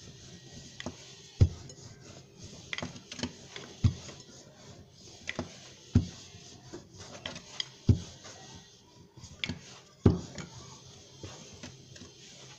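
Wooden rolling pin rolling out paratha dough on a wooden board: about five sharp knocks of the pin against the board, roughly two seconds apart, with lighter clicks and rolling sounds between them.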